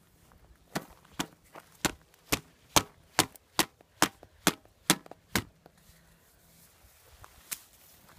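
A run of about a dozen sharp clicks, a little over two a second, stopping after about five seconds, with one more near the end.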